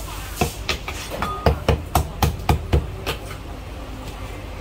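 Chinese cleaver chopping through a poached chicken onto a thick round wooden chopping block: a quick run of about ten sharp chops over the first three seconds, then a pause.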